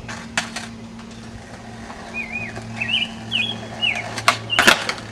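Skateboard on concrete: two sharp cracks about half a second apart a little after four seconds in, the tail popping and the board landing. Before them a small bird chirps in quick swooping phrases, over a steady low hum.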